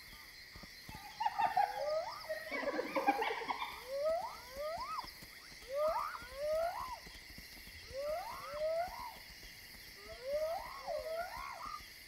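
Spotted hyenas whooping: a series of rising calls, mostly in pairs, every second or two, after a rougher burst of animal calls about a second in. A steady high insect trill runs underneath.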